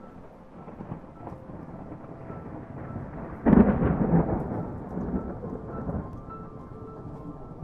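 Thunder over a steady hiss of rain, with one loud, sudden peal about three and a half seconds in that rumbles away over the next few seconds.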